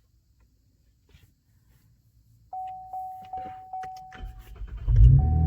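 Cadillac ATS with a muffler delete being started: faint clicks, then the car's warning chime pinging repeatedly from about two and a half seconds in. Near the end the engine cranks and fires with a loud flare, then settles into a deep, steady idle through the open exhaust.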